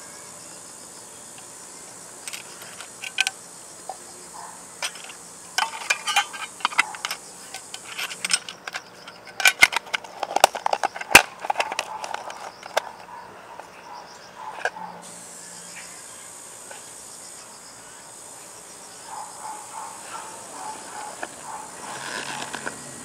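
A small round metal tin being handled and its lid pressed shut, making a run of sharp clicks and knocks that are loudest in the middle. Softer rustling of a leather pouch follows near the end. A steady high insect buzz runs behind it.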